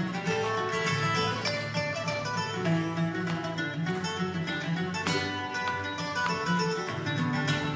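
Bluegrass band playing an instrumental break with no singing: quick picked acoustic guitar lead over bass.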